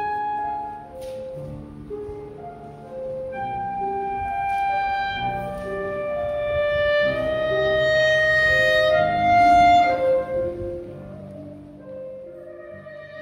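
Background music: a slow melody of held notes over lower accompaniment, swelling to its loudest about two-thirds of the way through and then fading.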